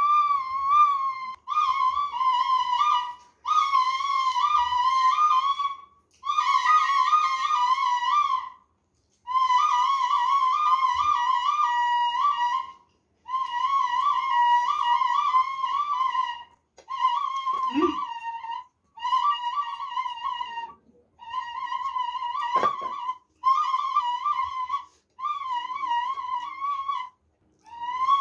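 Bansuri (bamboo flute) playing a melody in phrases of two to three seconds, each ending in a short pause for breath, with wavering bends and quick ornaments on the notes.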